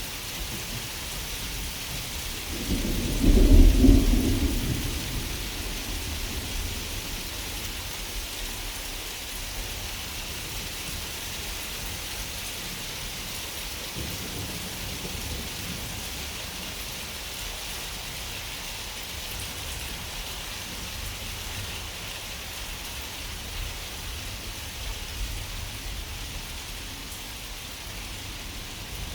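Steady rain falling, with one deep rumble of thunder about three seconds in that is the loudest thing heard and fades out over the next couple of seconds.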